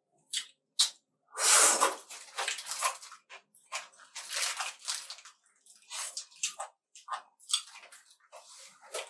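Close-miked eating of fried chicken burgers: irregular bites and chewing with wet mouth sounds, the loudest bite about a second and a half in.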